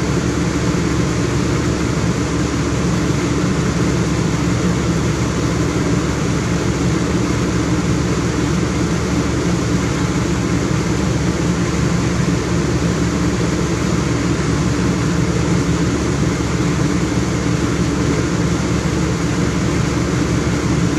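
Air conditioning unit running steadily: a constant hum under an even rush of air, with no change in speed or level.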